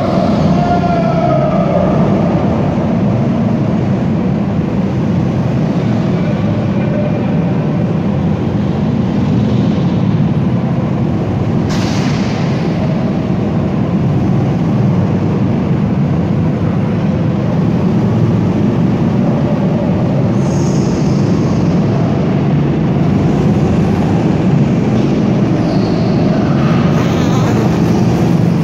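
Go-kart engines running as several karts lap a track in a large indoor hall, a steady loud drone whose pitch rises and falls as karts accelerate and pass. A single sharp knock about twelve seconds in.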